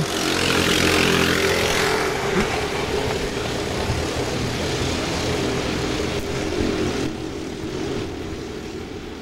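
Several racing kart engines running at high revs as a group of karts passes along the track, loudest in the first two seconds and then fading steadily as they pull away.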